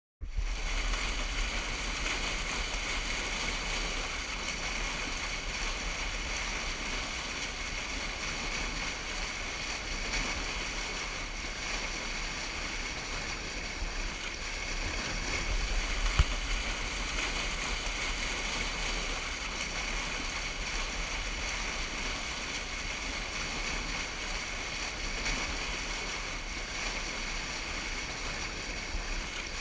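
River water rushing steadily over and below a low concrete dam, whitewater churning without a break. A single brief knock sounds about sixteen seconds in.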